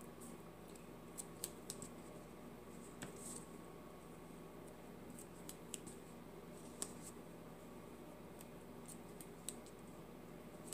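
Double-sided adhesive tape and cardstock being handled as strips of tape are applied to a paper panel: scattered faint clicks and ticks with light rustling.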